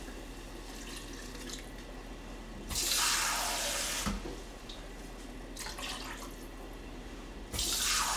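Kitchen sink tap turned on and running in two rushes of about a second and a half each, a few seconds apart, as water is drawn for the soup pot.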